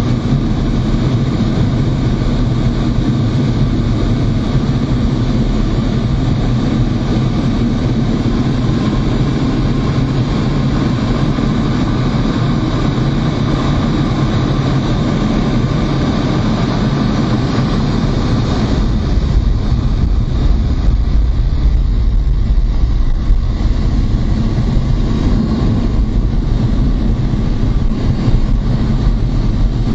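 Steady in-cockpit drone of a MiG-29 fighter in flight: its twin RD-33 turbofan engines and rushing air. A little past halfway the deep rumble strengthens while the higher noise drops back.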